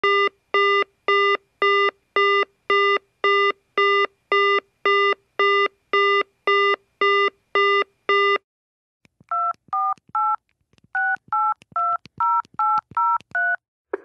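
A telephone line's run of about fifteen identical short beeps, roughly two a second, then, after a brief pause, ten touch-tone keypad tones dialing a phone number, in a group of three and then a group of seven.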